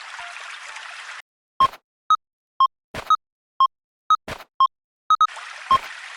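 Japanese railroad crossing warning bells ringing: two electronic alarm tones, a lower and a higher, alternating at about two strikes a second, with a few sharp knocks in between. The rushing water of a creek is heard in the first second and again near the end.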